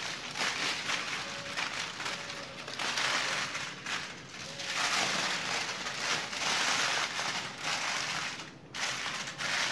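Aluminium foil crinkling and crackling as hands fold and crimp it closed into a sealed papillote parcel, with short lulls about four seconds in and near the end.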